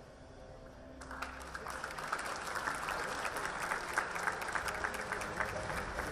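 Audience applauding, the clapping starting about a second in and growing louder.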